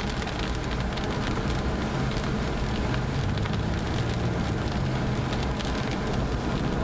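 Rain hitting a moving car's windshield and body, many small ticks over an even hiss, above the steady low rumble of the car driving on a wet highway.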